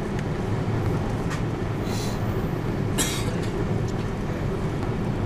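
Running noise of a JR West 223 series 2000-subseries electric train heard from inside, behind the cab: a steady low rumble of wheels on rails, with two brief high hisses about two and three seconds in.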